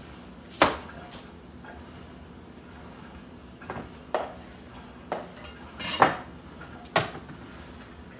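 About seven sharp, irregularly spaced knocks and clatters of a kitchen knife on a plastic cutting board and counter, with the loudest about six seconds in.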